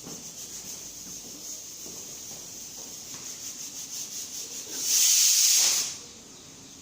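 R134a refrigerant gas hissing during charging of a refrigerator: a faint steady hiss, then a loud burst of hissing gas about five seconds in that lasts about a second and stops abruptly.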